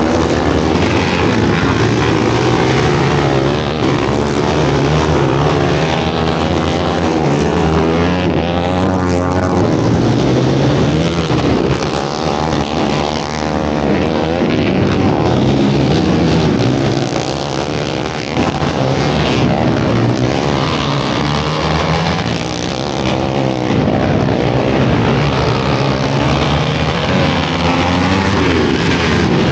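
Racing quad (ATV) engine running hard, its pitch rising and falling over and over as the throttle is worked, with a few short dips in loudness.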